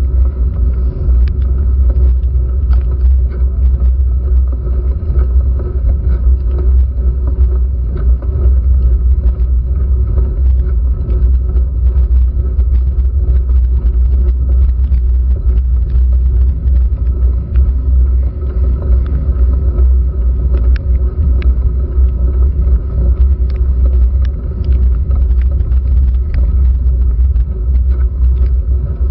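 Steady low rumble of a handlebar-mounted GoPro Hero3 in its waterproof housing on a road bike climbing slowly in the rain, as road vibration and wind reach the camera, with many small scattered ticks of rain drops hitting the housing.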